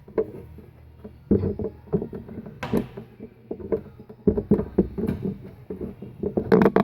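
Irregular clunks, knocks and rattles of the tool and cutter grinder being handled, with its parts and controls worked by hand. The loudest cluster comes near the end.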